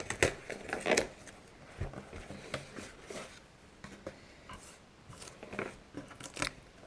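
Cardboard packaging being handled and pulled open by hand: scattered scrapes, rustles and small clicks, loudest in the first second, then quieter.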